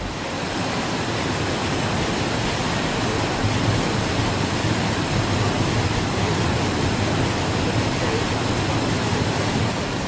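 Water plunging over Niagara Falls: a steady, dense rush of falling water.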